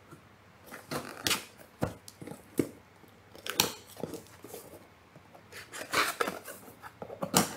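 Scissor blade slitting and tearing the packing tape on a cardboard box, in short, irregular scratchy strokes with pauses between them.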